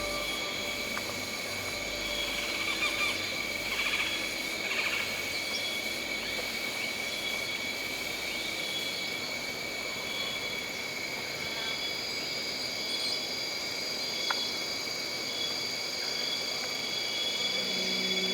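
Nature ambience of insects, such as crickets, trilling steadily on several high pitches, with a few louder bursts of chirping a few seconds in.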